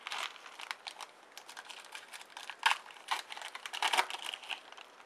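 Crinkling of a trading-card pack wrapper and cards being handled and slid apart: a dense, irregular run of small crackles and clicks, loudest a little over halfway and again near the end, then stopping.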